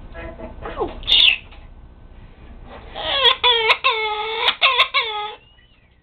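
African grey parrot mimicking a person crying. About a second in there is a falling cry and a short high squeal, then a rapid run of loud sobbing wails over about two seconds.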